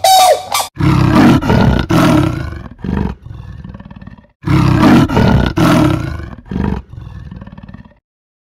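A leopard roaring and grunting: one loud roar, then a few shorter grunts and a quieter rasping tail, the same sequence heard twice. In the first instant, the last falling honk of a grey crowned crane's call.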